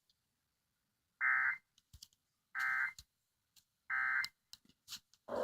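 Emergency Alert System end-of-message signal: three short buzzing bursts of digital data, each under half a second and about a second and a half apart, with a few faint clicks between them. It marks the end of the alert broadcast.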